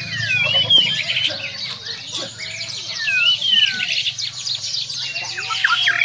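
White-rumped shama (Bornean murai batu) singing: a fast run of clear whistled notes that slide up and down, one phrase tumbling into the next.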